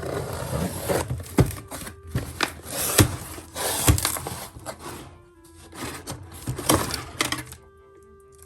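Box packaging being opened and handled: loud rustling and crinkling in three stretches, with sharp cracks about a second and a half, three and four seconds in. Soft background music plays underneath.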